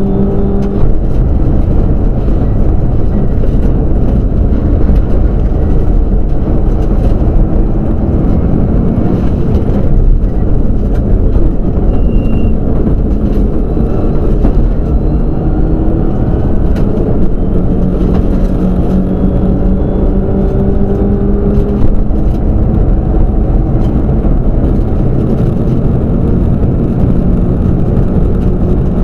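Group N Subaru WRX STI rally car's turbocharged flat-four engine heard from inside the cabin at speed on a gravel stage, its pitch climbing and dropping again and again with throttle and gear changes. Tyre and gravel noise from the car's floor runs underneath, with scattered sharp clicks from stones.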